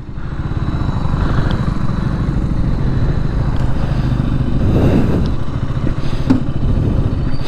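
2022 KTM RC 200's single-cylinder engine starting up and settling into a steady idle.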